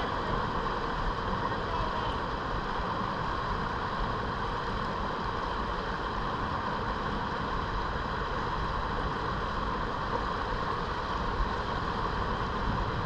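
Steady, even rush of river water pouring over a small riffle right beside the kayak.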